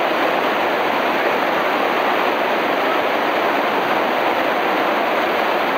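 River rapids rushing steadily over rocks and boulders: a loud, even rush of white water.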